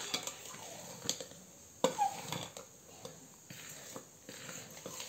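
Metal spoon clinking and scraping against a stainless steel pot as flour is tipped in from a plate and stirred into hot water. There are several sharp knocks; the loudest, a little under two seconds in, rings briefly.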